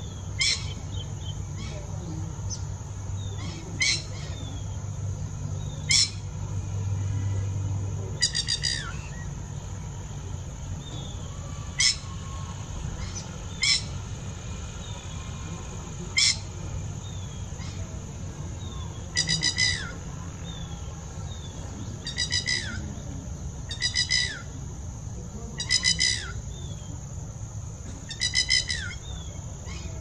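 Red-wattled lapwing calling: loud, sharp single calls a few seconds apart, and runs of quick stuttered notes that come about every two seconds in the last third.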